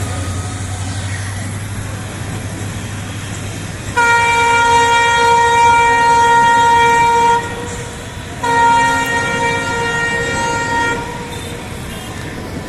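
WDP4B diesel locomotive's air horn sounding two long, loud blasts, the first about three and a half seconds and the second about two and a half, each a steady chord of several notes, over the running noise of the train.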